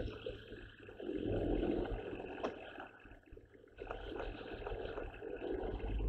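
Low, steady rumble inside an electric lorry's cab as it rolls slowly, with a few faint clicks and knocks; it drops away briefly about three seconds in, then returns.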